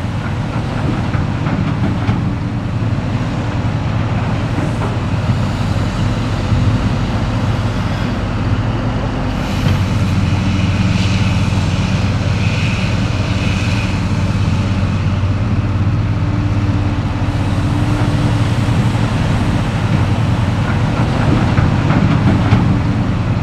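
Hitachi EX1900-6 mining excavator's diesel engine running steadily under load, a deep drone, with a faint high whine about halfway through.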